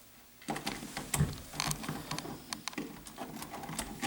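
Metal parts of a Tell 3912 lever lock set clicking and rattling as its two halves are worked together through the door and turned to line up. The clicking starts about half a second in.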